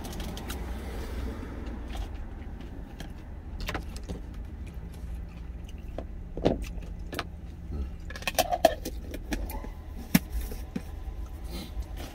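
Scattered light clinks and clicks of eating from an insulated food jar, with a few louder knocks partway through, over the steady low hum of an idling truck.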